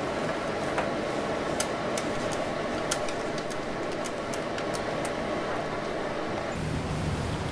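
Keys on a multi-line office desk phone being pressed to dial a number: a series of sharp clicks, about one or two a second, over a steady background hiss.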